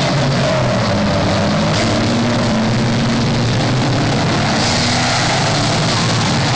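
Several banger racing cars' engines running hard around an oval track: a loud, steady mix of engine notes rising and falling in pitch as the cars pass.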